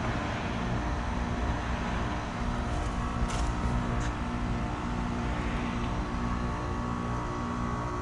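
American Standard Silver Series heat pump outdoor units running: a steady compressor hum under the whoosh of the condenser fan. A couple of brief high hisses come a little over three and four seconds in.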